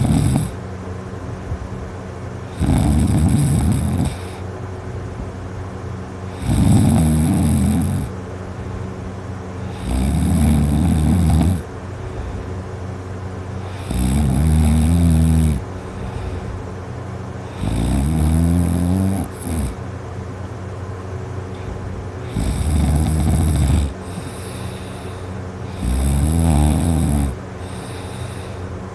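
A sleeping person snoring loudly and high-pitched, a snore about every three and a half to four seconds, each lasting about a second and a half.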